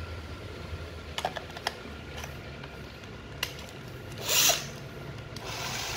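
Plastic clicks and knocks as a battery pack is fitted to a Makita 6261D 9.6 V cordless drill, with a louder scrape about four seconds in. Near the end the drill's motor starts and runs with a steady whirr.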